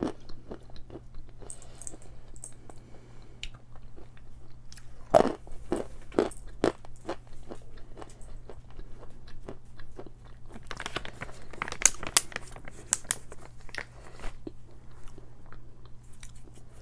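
A person biting into a piece of edible chalk and chewing it, a string of sharp, crumbly crunches that come thickest about five to six seconds in and again from about eleven to thirteen seconds.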